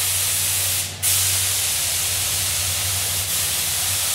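Paint spray gun hissing steadily as the boat's hull is sprayed, over a steady motor hum, with a brief break in the spray about a second in.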